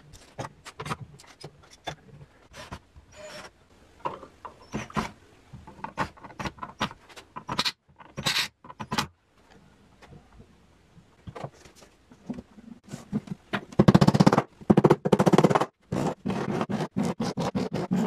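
Woodworking sounds from building a wooden drawer: an irregular run of clicks, knocks and light scrapes of wood and hand tools. About 14 seconds in they get louder and come quickly one after another, like rapid tapping on the drawer.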